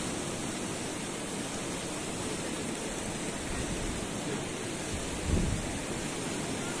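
Steady rushing outdoor noise, with a brief low thump about five seconds in.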